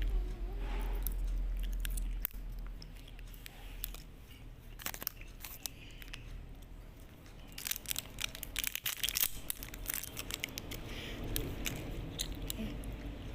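Close-miked chewing and crunching of food, with a dense run of crisp crackles about two thirds of the way through.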